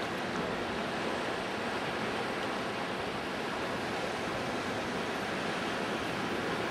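Steady rushing of distant surf, an even hiss with no separate sounds standing out.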